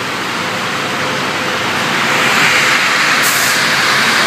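Roller-type veneer dryer running: a steady hiss of air and machine noise with a faint steady hum under it, growing a little louder about two seconds in. A short, higher hiss cuts in about three seconds in.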